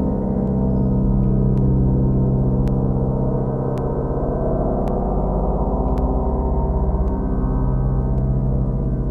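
Deep, sustained ambient drone music: dense low tones that hold and slowly swell, resonant like a struck gong.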